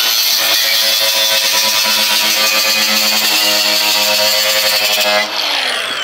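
Cordless angle grinder with a cutoff wheel running at full speed and cutting wire mesh: a steady high whine with a harsh grinding hiss. About five seconds in the trigger is released and the motor winds down with a falling whine.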